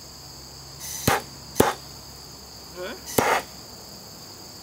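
Three sharp knocks, about a second in, a half second later and past the three-second mark, from hand tools worked against a log. A steady high insect chorus trills throughout.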